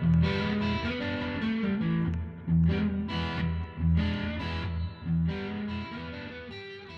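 Intro music: electric guitar with distortion strumming chords over a bass line, with a strong chord hit every second or so.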